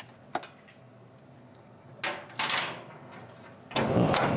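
A ratchet wrench working a bolt under a car, starting suddenly near the end as a loud run of rapid clicks. Before it come a single metallic click and a couple of short scrapes.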